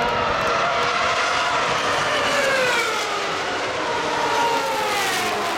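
Several 2013 Formula 1 cars with 2.4-litre V8 engines passing at speed in a group. Their overlapping high engine notes slide and fall in pitch as the cars go by.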